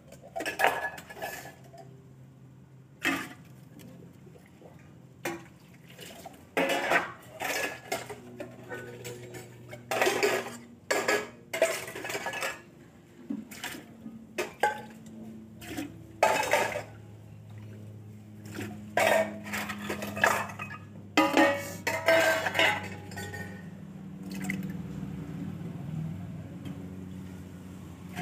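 Stainless steel utensils clattering and clinking as they are scrubbed and set down by hand during dish washing, in irregular bursts. Near the end there is a steadier splashing as water is poured from a steel bowl to rinse it.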